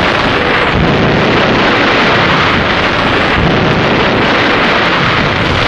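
Artillery bombardment on an old film soundtrack: a loud, steady roar of guns and explosions with no single shot standing out.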